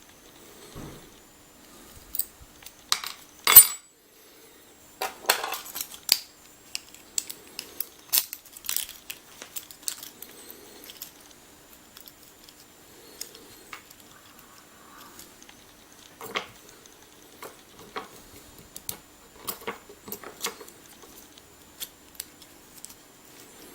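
Small metal lock parts clicking and clattering against each other and a hard surface as a pin-tumbler lock cylinder is taken apart, in irregular knocks with one sharp clack about three and a half seconds in.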